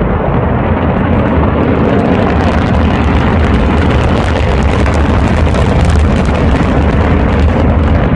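Loud, steady low rumble of an orbital rocket launch heard from miles away, with a fine crackle over it, as the rocket fails and explodes on launch.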